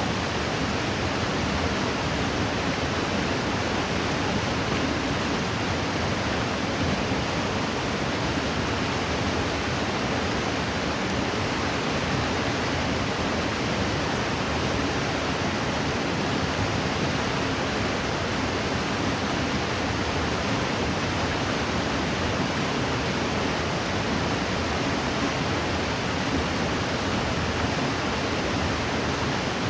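Steady rush of flowing river water, an even noise with no breaks or changes.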